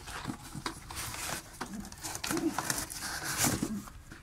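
Cardboard box rustling and scraping as hands reach in and lift a pigeon out, in short irregular scrapes and taps.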